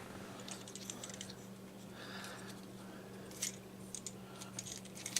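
Small plastic clicks and ticks from the parts of a Transformers Studio Series Stinger deluxe action figure being folded and snapped into place by hand during its transformation, with a sharper click about three and a half seconds in.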